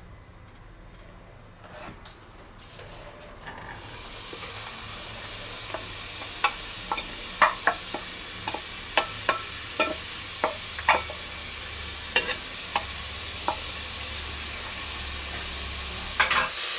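Diced onions hit hot oil in a stainless steel pot and start sizzling about four seconds in, a steady hiss that holds to the end. Through the middle come a dozen or so sharp taps as a wooden spoon scrapes the onions out of a metal bowl and knocks against the bowl and pot.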